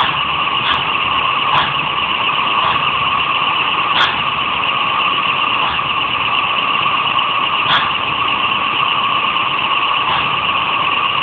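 Steady, loud mechanical whirring of a fast-spinning kinetic LED light sculpture, its arc rotating at speed, with faint clicks now and then.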